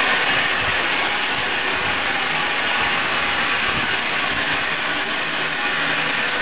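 Steam locomotive hissing steadily as steam escapes.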